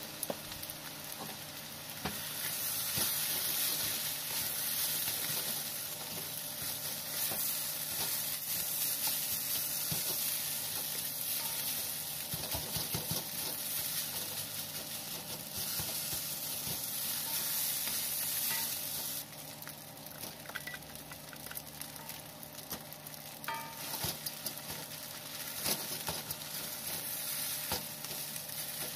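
Nasi goreng (fried rice) sizzling in a hot pan as it is stirred, with scattered taps and scrapes of the spatula. The sizzle grows louder a couple of seconds in and drops noticeably about two-thirds of the way through.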